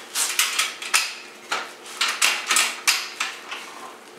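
Wood and tools being handled: a run of irregular sharp knocks and clatters, about a dozen in four seconds.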